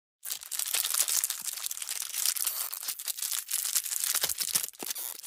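Brown paper being torn open, a dense crackling rip full of small snaps, as a logo-reveal sound effect.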